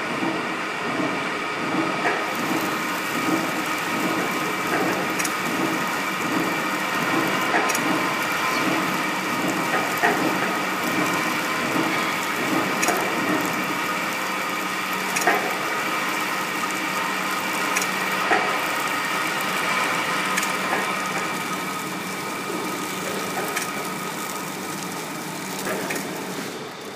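Intelidura HFP 480 three-servo horizontal flow packing machine running: a steady machine whine and hum, with a sharp click about every two and a half seconds as it works through the vegetable bundles.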